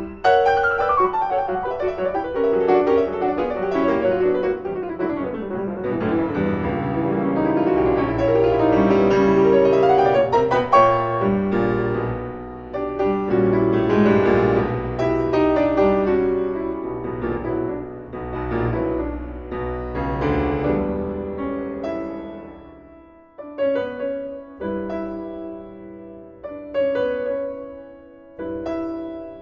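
Background piano music: flowing runs and chords, thinning to sparser separate notes near the end.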